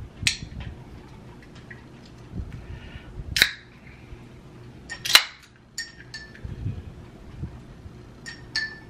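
Aluminium drink can being opened by its pull tab: a few small clicks, then two sharp cracks about two seconds apart, the second the loudest, followed by light metallic clinks with a brief ring.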